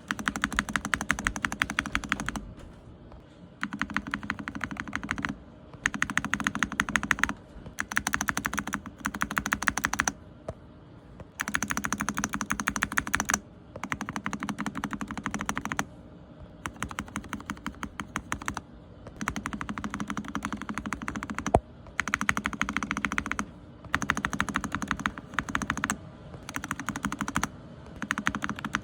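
Keyboard spacebar on a Gateron switch pressed rapidly over and over, in bursts of quick clicks about two seconds long with short pauses between them.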